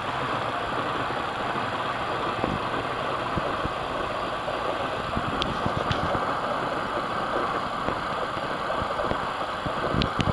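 A train running by: a steady rumble of running noise with scattered low knocks.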